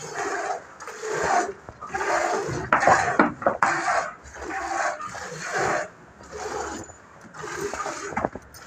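Milk squirting into a steel bucket as a buffalo is milked by hand: a steady rhythm of hissing spurts, about one and a half a second.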